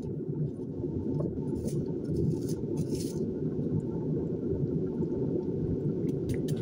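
Kitchen knife cutting through an onion held in the hand, a few crisp cuts in the first half and a quick run of cuts, about four or five a second, near the end. A steady low hum runs underneath.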